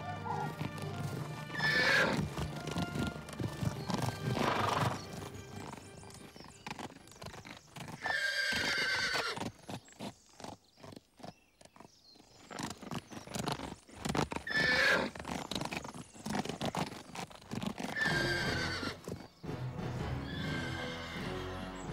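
Horses whinnying several times, each call falling in pitch, over hoofbeats and background music.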